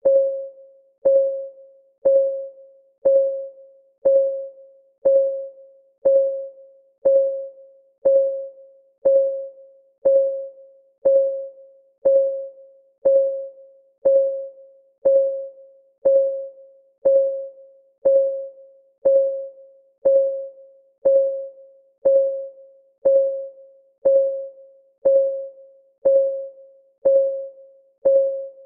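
Countdown timer's clock-ticking sound effect: one tick every second, steady and even. Each tick is a short, pitched, bell-like tone that fades quickly.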